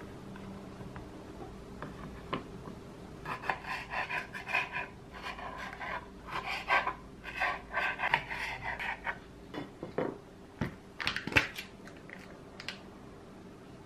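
A knife slicing through cherry tomatoes on a cutting board: a run of short, crisp cuts and taps over several seconds. Near the end come a few sharp clicks and knocks, the loudest sounds here, as a plastic cheese tub and its lid are handled.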